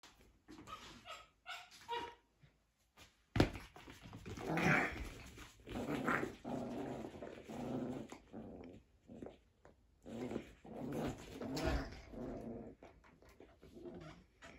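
Coton de Tulear puppy growling and giving small barks in play over a toy, on and off. A sharp knock, the loudest sound, comes about three and a half seconds in.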